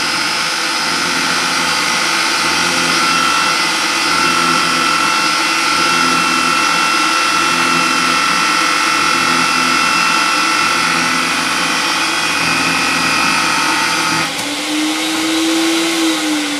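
Small power pipe threading machine running, its die head cutting threads on a 20A pipe: a steady motor hum with a regular low pulse a little faster than once a second. About fourteen seconds in the sound changes as the cut ends, and near the end the motor's pitch falls as it winds down.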